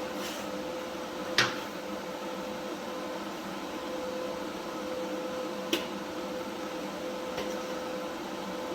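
Steady electrical hum from a powered-on, idling Primeweld TIG welder, with three short clicks.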